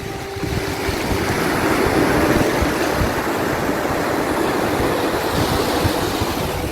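Sea waves washing onto the shore, a continuous surging rush that swells about a second in and stays full, with faint soft steady tones underneath.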